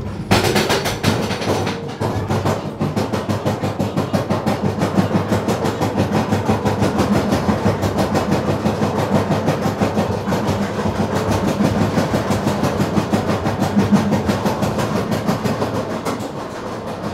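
Vekoma mine train roller coaster cars clattering along the track in a fast, even rhythm of clicks over a steady low hum. The clatter eases slightly near the end.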